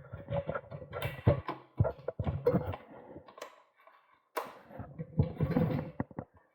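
Irregular clicking, knocking and rattling of bicycle components being handled and fitted by hand, with a pause about halfway. A faint steady hum runs underneath.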